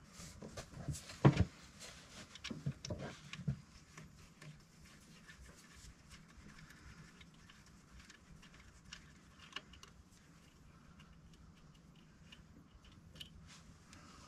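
Small metal clicks and knocks of hand work at the fuel filter housing of a 7.3 IDI diesel with the engine off, as the air-bleed Schrader valve is worked out. They cluster in the first few seconds, the loudest a sharp knock a little over a second in, then thin to occasional faint ticks.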